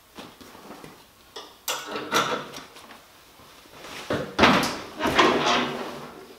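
Knocks and clunks of a removable golf-cart rear seat being pressed down onto its hood-pin mounts, a few sharp ones in the first half. Then a louder, longer cluster of thuds and rustling as a person climbs up and sits his weight down on the seat.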